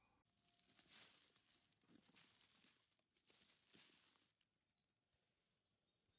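Footsteps crunching and rustling through dry twigs and forest litter, about four steps, each a crackle with a soft thud, stopping about four seconds in.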